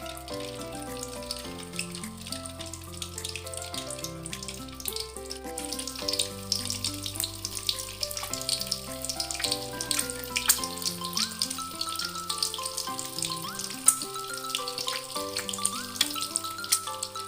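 Background music with a steady melody, over food frying in oil in a pan: a dense crackle and sizzle that grows louder about six seconds in.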